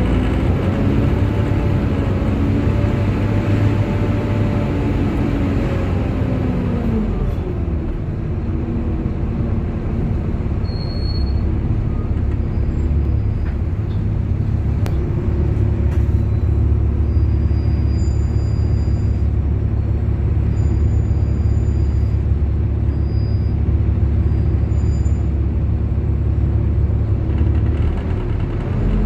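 Volvo B7TL double-decker bus's diesel engine and cooling fan running. The engine pitch climbs and holds under power, then falls away about seven seconds in. A steady lower drone carries on for about twenty seconds, and the pitch rises again as it pulls away near the end.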